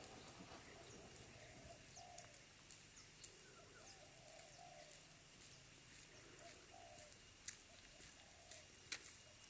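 Faint, repeated cooing of a dove, with a few sharp clicks, the loudest near the end.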